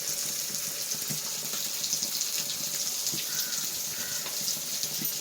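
Indian mackerel pieces frying in hot coconut oil in a pan: a steady sizzling hiss with scattered small crackles.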